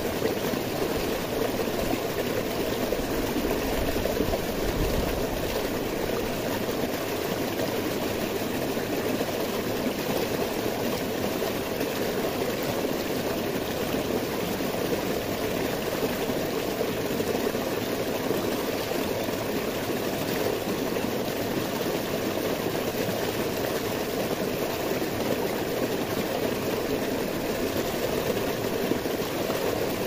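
Mountain stream rushing and splashing down a small cascade between boulders: a steady, unbroken water noise.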